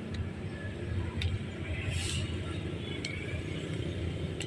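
Diesel-electric locomotive engine running with a low, steady rumble, with a few faint clicks over it.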